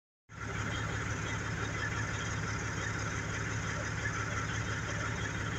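A vehicle engine idling with a steady low hum, under an even outdoor hiss.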